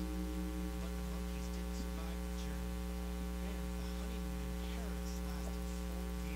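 Steady electrical mains hum, with a few faint scattered ticks and rustles.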